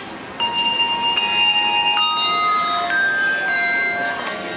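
Handbell choir starting to play about half a second in: handbells struck one after another about once a second, each note ringing on and overlapping the next.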